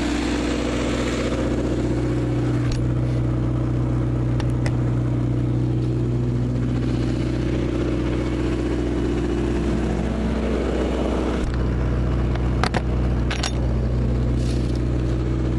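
21 kW diesel generator running steadily, with a few short clicks along the way.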